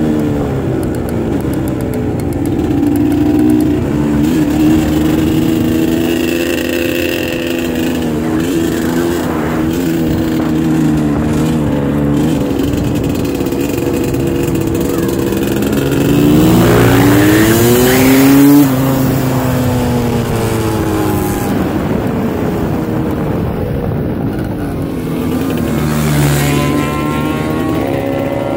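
Suzuki LT250R quadracer's two-stroke engine running hard at speed, a steady high drone. About two-thirds of the way through it revs up, rising in pitch to its loudest, then drops off suddenly.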